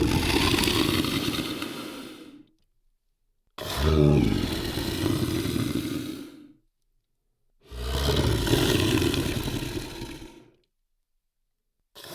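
Large monster bellow sound effect, a deep, rough creature call repeated with silent gaps between. One bellow fades out, two more follow, each about three seconds long and tailing off, and another starts at the very end.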